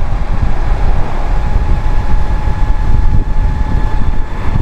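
Heavy wind buffeting on the microphone from riding a Spark Cycleworks Bandit electric bike at about 36 to 38 mph under full throttle, with a thin steady whine from its electric drive motor.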